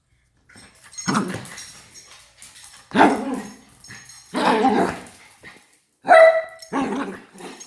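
A pet dog barking repeatedly, in about five separate barks a second or so apart, one of them a higher, drawn-out yelp about six seconds in.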